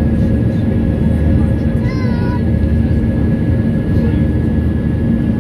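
Jet airliner's engines in flight heard from inside the cabin: a loud, steady drone with a deep rumble and steady humming tones.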